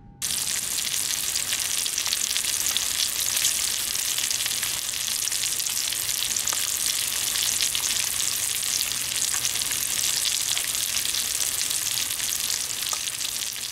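Steady crackling hiss like static or sizzling, cutting in abruptly just after the start.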